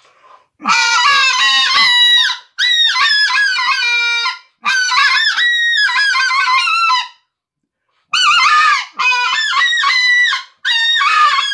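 Hand-made Redbone white-fronted goose call blown by mouth: runs of fast honks and clucks, each note jumping sharply in pitch. The calling comes in about six runs, with a pause of about a second past the middle.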